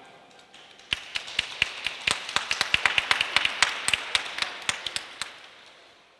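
Applause from a small audience at the end of a song: a few scattered claps about a second in, thickening into steady clapping, then dying away before the end.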